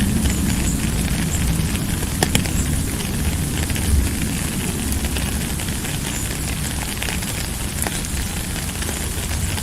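Steady rain: an even hiss with scattered sharp drop ticks and a constant low rumble underneath.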